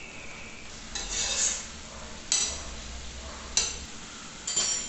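Sliced zucchini and carrots being stirred in a stainless steel saucepan, with four sharp metallic clinks of metal against the pan, over a faint steady hiss of cooking.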